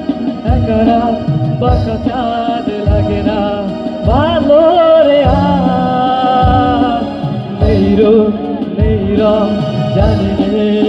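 Live band performing a Bengali song: a man sings, holding a long wavering note in the middle, over electric guitars, keyboard and a steady beat.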